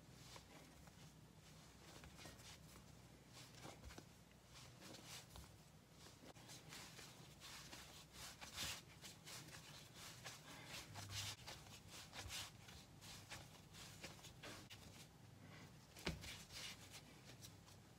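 Faint, irregular scrapes and soft pats of hands kneading a stiff sourdough starter (lievito naturale) on a stone countertop, as fresh flour and water are worked into it.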